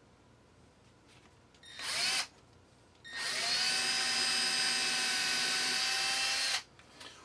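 Power drill run twice: a short burst about two seconds in, then a steady run of about three and a half seconds. Each run starts with a quick rise in pitch as the motor spins up.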